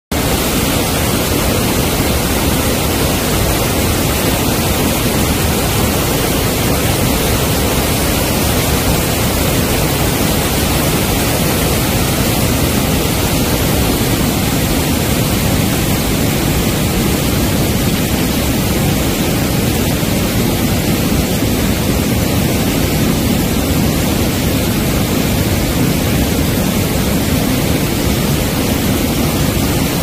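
Mountain stream running high in the rainy season, white water cascading over boulders in a loud, steady rush with no letup.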